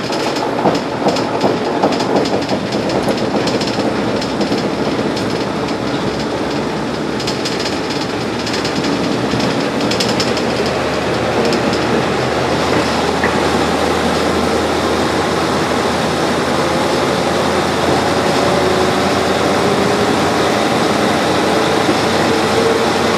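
Old Japanese diesel railcar running on jointed track, heard on board: the clickety-clack of wheels over rail joints, with sharp knocks in the first few seconds, over steady running noise. Near the end a whine slides in pitch.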